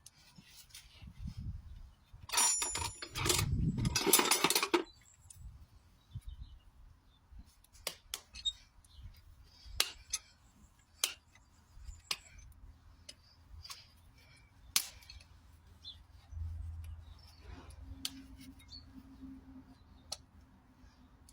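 Farrier's hoof-trimming tools working on a horse's hoof: a burst of loud, rough noise about two seconds in lasting a couple of seconds, then scattered sharp clicks and snips.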